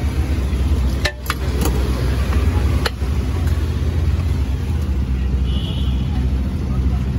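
Steady low mechanical hum, with a few sharp clinks about a second in and again near three seconds.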